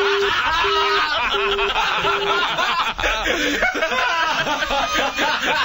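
Men laughing and chuckling. Over the first couple of seconds a telephone busy tone beeps four times, evenly spaced, as the phone line goes dead after the call.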